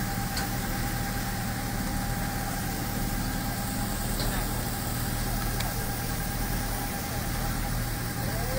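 A vehicle engine idling steadily with a low hum, mixed with the hiss of a water hose spraying.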